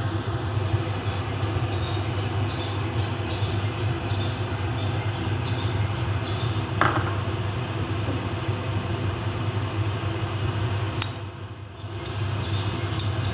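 A steady low mechanical hum, like a motor or fan running, with a brief clink about seven seconds in and a short drop in level with a click near the end.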